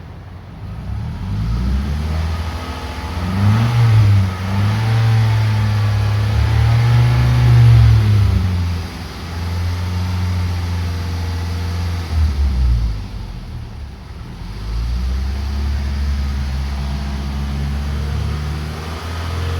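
A 2003 Toyota Camry's engine revved and held at raised revs, its exhaust sounding through a newly fitted aftermarket muffler. The revs climb and hold for several seconds, ease off twice, and climb to a steady hold again near the end.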